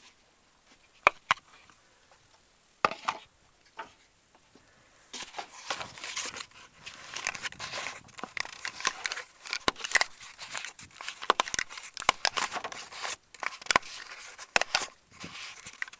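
Handling of plastic oil-change gear, the funnel and the new oil bottle: a few separate clicks and knocks at first, then from about five seconds in a continuous crinkling, crackling run of clicks.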